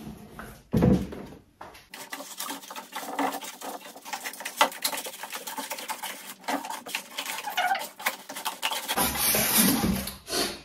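Crinkling and rustling of packaging: plastic wrap and foam inserts being pulled out of a new air fryer oven's cavity, with irregular crackles and a few sharp knocks.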